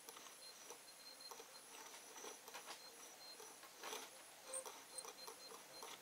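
Near silence with faint, scattered light clicks and rubbing as a scooter crankshaft is turned slowly by hand on bearing stands under dial indicators.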